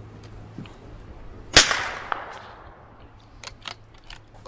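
A single shot from a CZ 457 MTR .22 LR bolt-action rifle about a second and a half in, with a short trailing echo. A few light clicks follow near the end as the bolt is worked.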